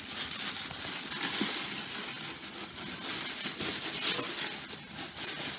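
Packaging being handled and pulled apart during unboxing: continuous rustling and crinkling with small crackles.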